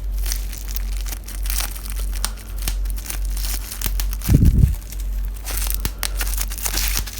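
Bubble wrap and plastic packaging being handled and pulled away, with irregular crinkling and crackling. There is one loud low thud about four seconds in, over a steady low hum.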